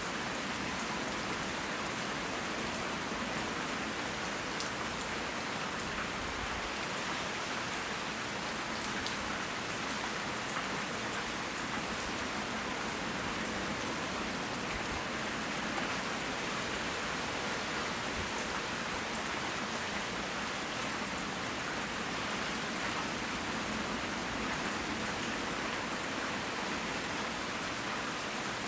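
Steady heavy tropical rain falling on surfaces, a constant even hiss with occasional faint drop ticks.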